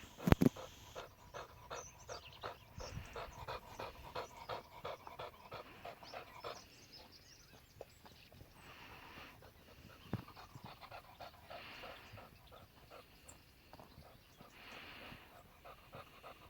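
A dog panting quickly, about four breaths a second, easing after about six seconds into slower, spaced breaths. A sharp knock right at the start, and a smaller one about ten seconds in.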